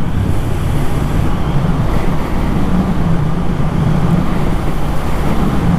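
Motorcycle engine running at a steady cruise with an unchanging low note, under a rush of wind noise on the microphone.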